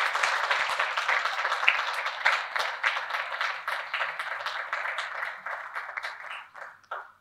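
Audience applauding steadily, then thinning out and stopping in the last second or so.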